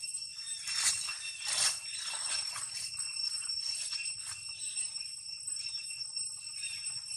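A steady, high-pitched ringing drone of several tones, with rustling and crunching of dry leaves underfoot as a macaque walks through them, loudest twice in the first two seconds.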